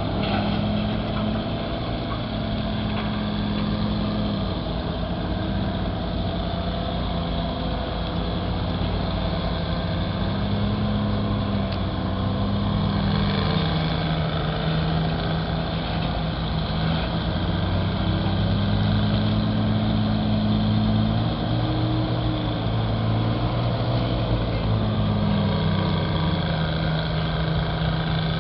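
Engines of vintage Northwest backhoes running while digging dirt, their pitch rising and falling every few seconds as the load changes.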